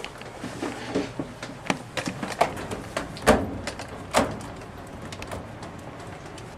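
Irregular clicks and knocks of a laptop computer being opened and handled, with two heavier thumps a little past the middle.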